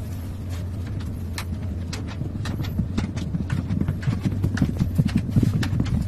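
A cat galloping in a wooden cat exercise wheel: quick, rhythmic paw thumps on the wheel's track over the steady rumble of the turning wheel, the thumping growing louder in the second half.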